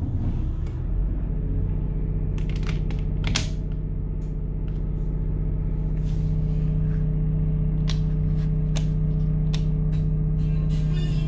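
Boat's onboard diesel generator just started, settling within the first second into a steady, even hum. A few sharp clicks sound over it.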